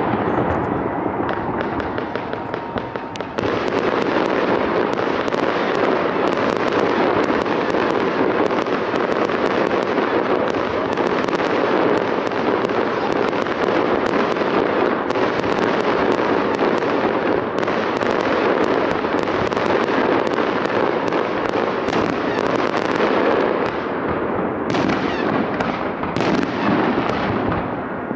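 Aerial firework shells bursting in a continuous barrage: a dense rumble of bangs and crackles. It jumps louder a few seconds in, and near the end the crackle thins into more separate bangs.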